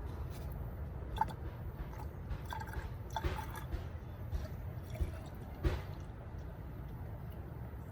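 Coolant being poured from a jug into a car's coolant expansion tank: scattered glugs and drips over a steady low rumble, the loudest glug about two-thirds of the way through.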